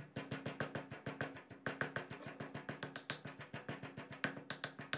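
Quiet background music: a few steady low notes held under a quick, even beat of short knocks.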